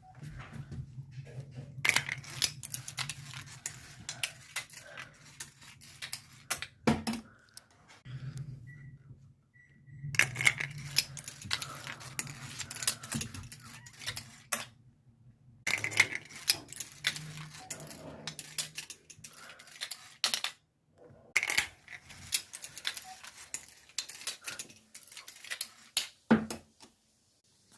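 Marbles rolling and clattering down a marble run: rapid clicking and rattling in several runs of a few seconds each, with short quiet gaps between them.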